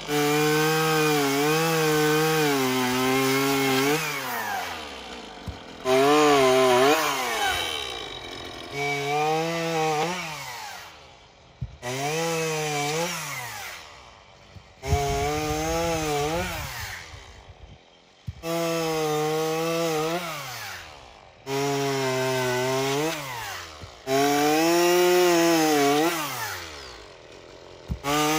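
Two-stroke chainsaw cutting the tops off cedar fence posts, several cuts in a row. Each cut is a few seconds of the engine working steadily under load, wavering a little, then its pitch falls away as the throttle is let off, before the next cut starts abruptly.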